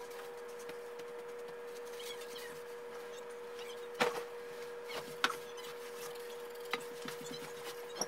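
A person landing on a bed and moving under the covers: a sharp knock about halfway through, then a couple of lighter knocks, over a steady room hum.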